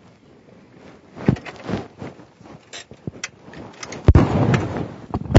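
Knocks and handling noise around a car, then a heavy low thump about four seconds in, followed by about a second of dense noise: a car door being shut.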